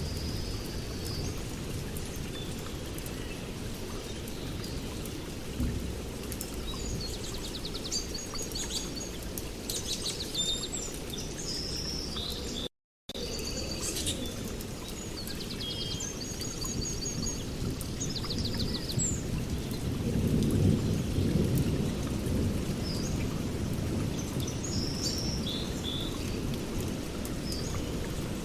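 A steady deep rumbling noise, all low and muffled, with small birds chirping over it. The rumble swells about two-thirds of the way through, and everything drops out for a split second near the middle.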